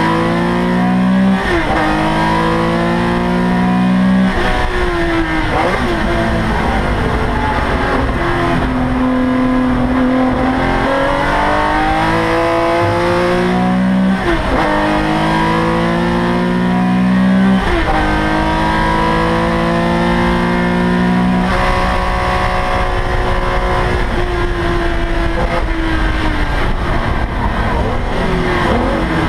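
Air-cooled flat-six of a Porsche 911 ST race car, heard from inside the cockpit. It is pulling hard at high revs, and its pitch climbs steadily and then drops sharply at each of several gear changes. In the later part it holds fairly steady revs that sink slowly as the car slows for a corner.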